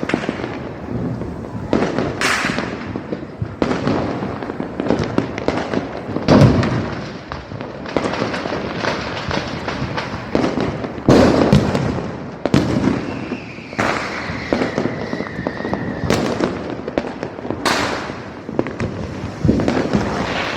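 Firecrackers bursting in a dense, continuous run of pops and crackling, with heavier bangs about six and eleven seconds in. A thin whistle falls in pitch through the middle.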